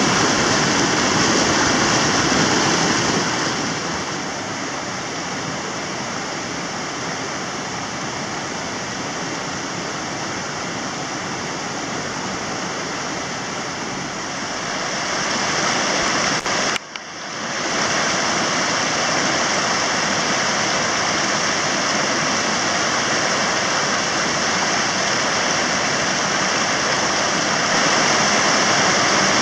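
Mountain torrent rushing over boulders: a steady noise of white water, a little quieter through the middle, cutting out for a moment about seventeen seconds in before it resumes.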